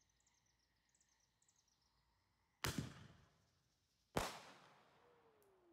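Fireworks going off: two sharp bangs about a second and a half apart, each trailing off in a rumbling echo, with a faint falling tone near the end.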